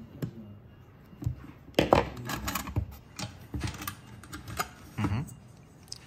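Pliers clicking and scraping on the thin sheet-metal housing of a cross-flow cooling fan as its tabs are bent open. Loose metal parts clink and clatter irregularly as the housing is worked free, loudest about two seconds in.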